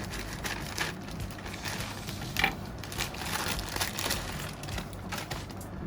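Packaging being handled and opened: irregular rustling and crinkling, with one sharper click about two and a half seconds in.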